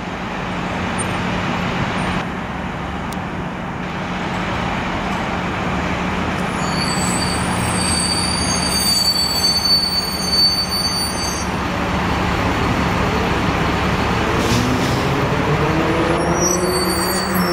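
2010 MCI D4500CT coach's Cummins ISM inline-six diesel running as the bus pulls away and passes close by, its engine note rising near the end as it accelerates. A high squeal sounds for a few seconds in the middle.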